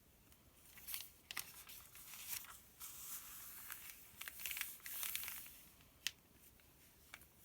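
Pages of a paper sales circular being handled and turned, rustling and crinkling in uneven spells, with a few sharp taps, the loudest about six seconds in.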